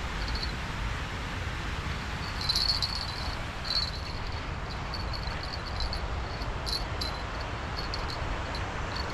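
Outdoor ambience: repeated short, high chirps, strongest about two and a half seconds in, over a steady low rumble, with a few sharp clicks.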